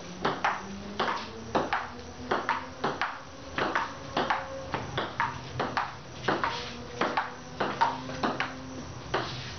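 Table tennis rally: a ping-pong ball tapping off paddles and bouncing on the table, a steady run of sharp clicks about three a second, often in quick pairs of bounce and hit.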